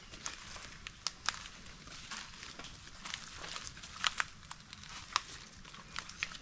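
Footsteps crunching through dry leaf litter and twigs, with irregular sharp crackles as leaves and small sticks break underfoot.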